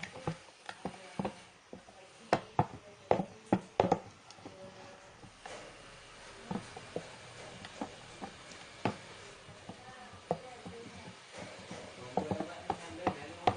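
Thick, freshly activated slime being stirred and worked by hand, giving irregular sticky clicks and pops, busiest in the first few seconds and again near the end.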